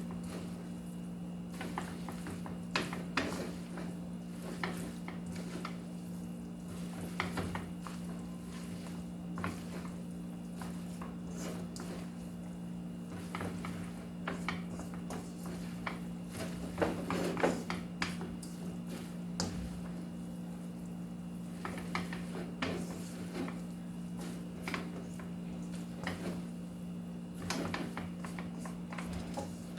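Kitchen cooking sounds: scattered clinks and knocks of utensils against pots and pans, with a louder cluster of knocks about halfway through, over a steady low hum.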